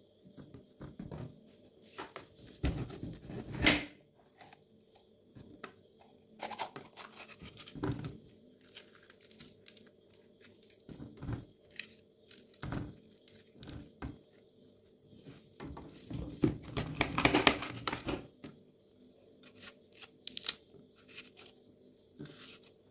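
Red bell pepper being torn open, cored and sliced with a small knife on a wooden board: a series of short, crisp tearing and cracking sounds at irregular intervals, loudest around the start and about two-thirds of the way through.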